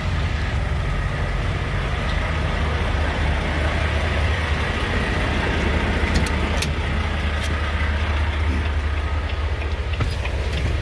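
Semi-truck diesel engine idling steadily, with a few sharp clicks in the second half.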